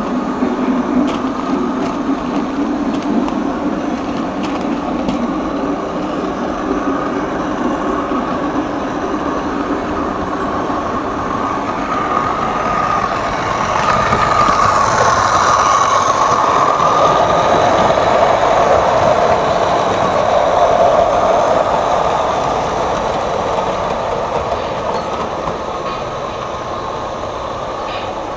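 Train sound effects played from an old 45 rpm record: the running noise of a passing train, which builds to its loudest about halfway through and then fades gradually.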